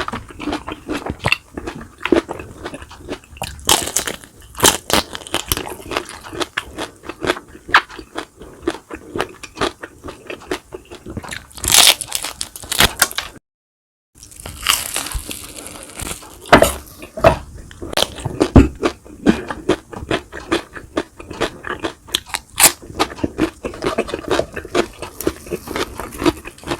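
Close-miked eating: a person biting and chewing crunchy food, with many quick sharp crunches and mouth clicks. The sound drops out completely for about half a second near the middle.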